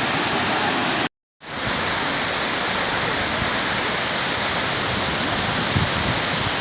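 Steady rushing of the Kuang Si waterfall's cascading water, cutting out completely for a moment about a second in.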